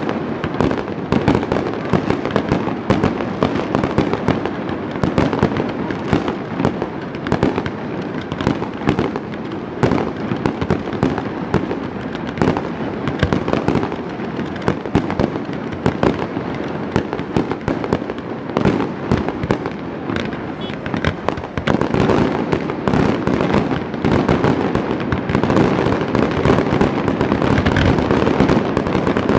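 Fireworks display: aerial shells bursting in quick succession with crackling, a near-continuous barrage that grows louder and denser about three quarters of the way through.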